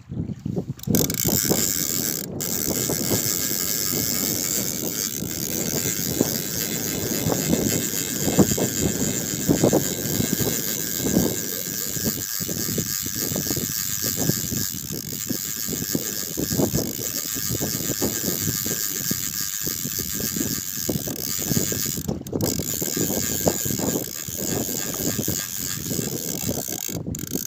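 Spinning reel being cranked steadily, a fast continuous mechanical clicking and rattling, starting about a second in, as a hooked fish is wound in on a bent rod.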